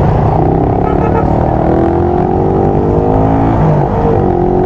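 Motorcycle engine accelerating, its pitch rising steadily for about three seconds, heard through a microphone inside the rider's helmet over a steady low wind rumble.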